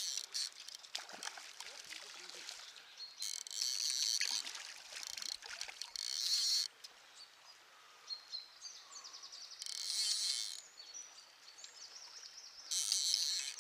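Fly reel ratchet buzzing in four short runs of about a second each, with slower clicking between, as a hooked brown trout is played. Faint splashing water underneath.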